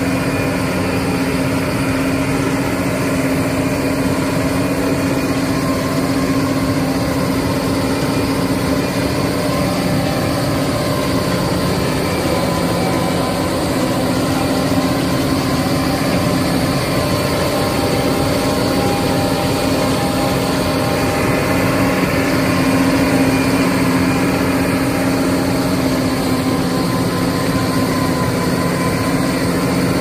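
John Deere self-propelled forage harvester working under load, chopping standing maize and blowing the chopped silage out of its spout into a trailer. It makes a loud, steady drone with a low hum.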